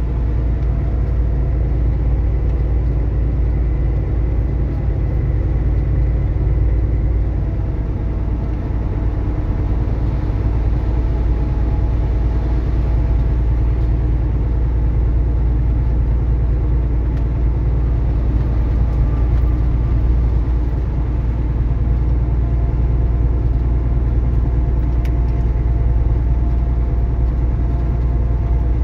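Semi-truck diesel engine and road noise heard from inside the cab while driving: a steady low rumble with faint engine tones above it.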